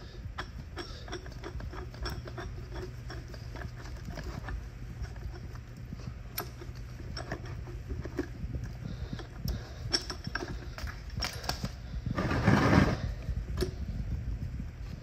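Coil-spring compressor being loosened by hand: a run of small irregular metallic clicks and clinks from the tool and wrench, with a louder rasp about twelve seconds in.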